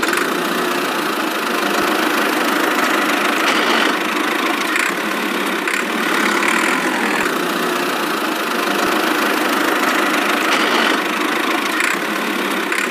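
Engine sound of a toy tractor, running steadily with no deep low end and a few faint ticks.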